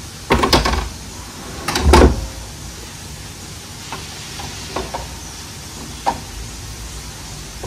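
Steel parts of a barrel press fixture clanking and scraping as they slide: two loud metallic clunks in the first two seconds, then a few lighter knocks as the rifle is lifted out of the fixture.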